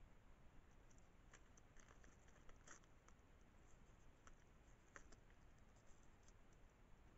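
Faint, irregular small clicks and scratches from a striped skunk nosing and nibbling at ice and snow among rocks, over a quiet hiss.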